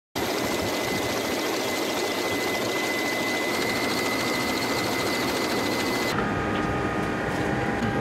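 Steady rushing machine-like noise with a constant thin high whistle; about six seconds in it changes abruptly to a lower, steadier hum with a few faint humming tones.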